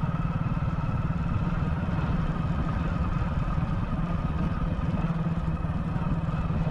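Vehicle engine running at a steady speed while driving, a fast even throb with a constant low hum that holds the same pitch throughout.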